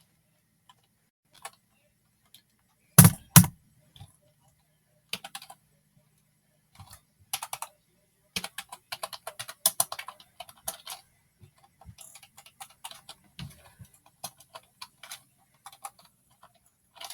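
Typing on an ONN computer keyboard: irregular runs of key clicks, with two louder knocks about three seconds in.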